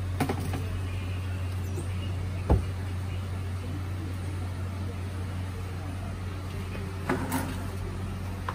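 Steady low mechanical hum, with a few light knocks and a dull thump about two and a half seconds in.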